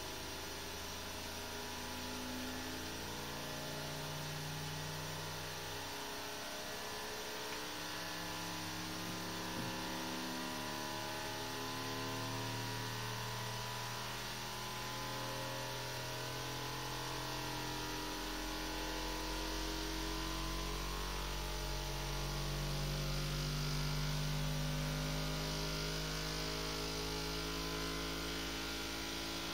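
Flashforge Adventurer 5M Pro 3D printer running, its stepper motors whining in steady tones that jump to a new pitch every second or few, over a constant low hum.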